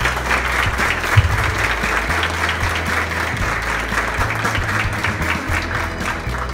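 A group of people clapping, many hands at once, with music playing underneath; the clapping dies away near the end.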